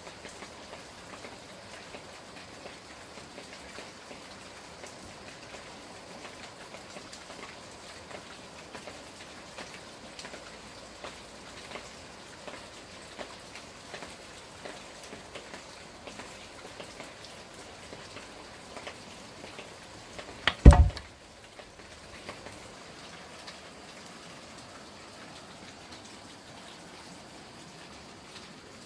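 Steady light pattering with many small ticks, like rain falling, and about two-thirds through a single sharp, heavy thud that is much the loudest sound.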